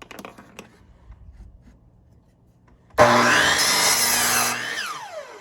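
A power saw cutting a wooden board: a few light knocks of handling the wood, then about three seconds in the saw starts abruptly and runs loud through the cut for under two seconds before its blade winds down with a falling whine.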